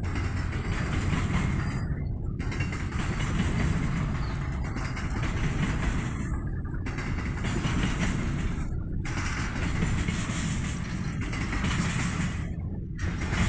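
Container wagons of an intermodal freight train rolling past on the rails, a steady low rumble with wheel and rail noise.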